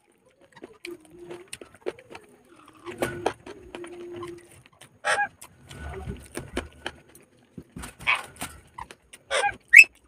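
Close-up eating sounds: wet chewing and lip smacks in short bursts, with soft clicks of fingers mixing rice on a paper plate. A faint steady low tone sounds twice in the first half.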